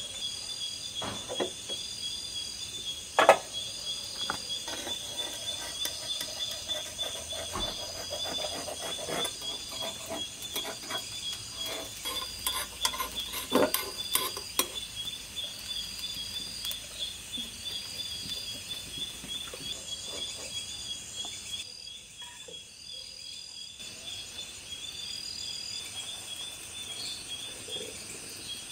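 A utensil clinking and scraping against a hopper pan as a hopper is cooked and lifted out, with one sharp knock about three seconds in and a run of clinks around the middle. A steady chorus of chirping crickets goes on underneath.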